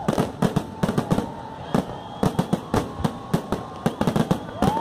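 Aerial fireworks bursting overhead: a dense, irregular run of sharp bangs and crackles, several a second, with a faint steady high tone held underneath.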